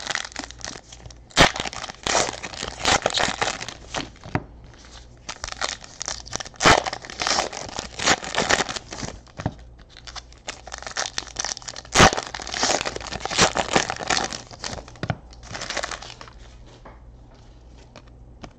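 Plastic foil trading-card pack wrappers being torn open and crumpled in the hands, a crinkling, tearing sound in three spells with a few sharp clicks, which dies away near the end.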